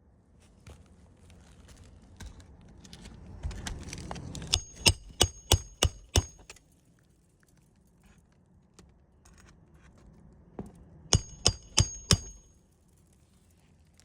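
Hammer driving roofing nails into a replacement asphalt shingle: rustling as the shingle is worked into place, then two runs of quick ringing hammer blows, about six and then about four, a few strikes a second.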